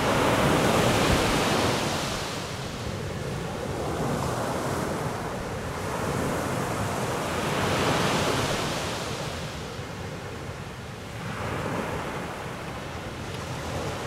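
Ocean surf breaking and washing up the beach, a steady rush that swells and fades every few seconds, loudest near the start and again a little past halfway.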